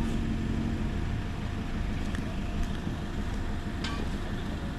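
An off-road 4x4's engine idling, a steady low rumble, with a few faint clicks about two and four seconds in.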